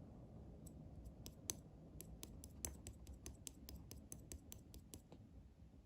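Slime being worked by hand, giving a quick run of crisp clicks, about four a second, that stops about five seconds in.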